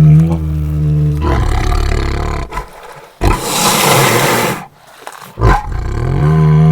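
Bengal tiger roaring and snarling in a series of separate calls with abrupt cuts between them: a pitched roar fading just after the start, a rough growl, a loud breathy snarl in the middle, and another pitched roar beginning near the end.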